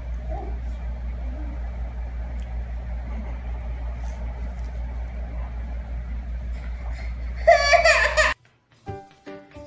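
A steady low hum, then near the end a baby's short, loud cry that cuts off suddenly.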